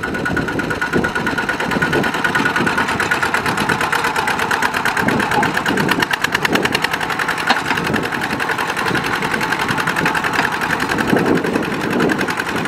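Two-wheel walking tractor's single-cylinder diesel engine running steadily with a rapid, even firing beat, under load as it tries to drag a rice-laden trailer out of deep mud.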